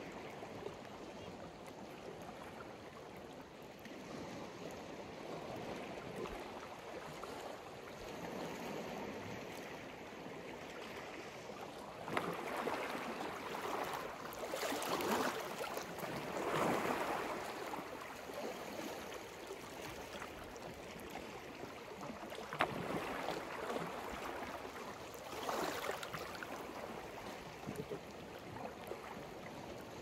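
Sea waves washing onto the shore as a steady wash of surf. Louder waves break and surge twice, the first a little before halfway and the second about three-quarters through.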